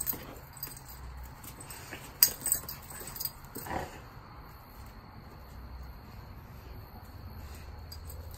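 Two dogs play-fighting: scuffling with a few sharp clicks and knocks about two to three seconds in, and a short dog whine at about three and a half seconds.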